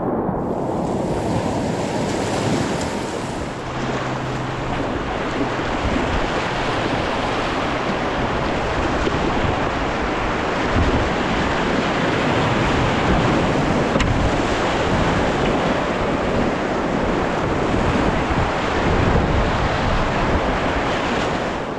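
Whitewater rapids rushing close to the microphone of a kayak on the river, a loud, steady churning of water with no let-up.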